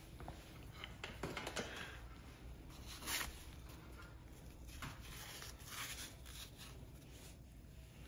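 Faint rustling and scraping as a small steel part and cardboard jaw pads are handled and reset in a bench vise, in a few short irregular bursts, the loudest about three seconds in.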